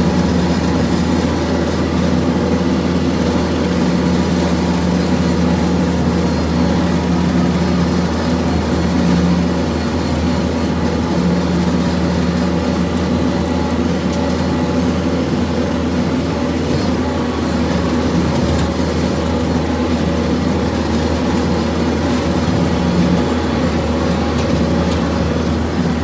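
Kubota MX4700 tractor's diesel engine running steadily under load, driving a six-foot Woods rotary cutter (bush hog) through tall grass and brush.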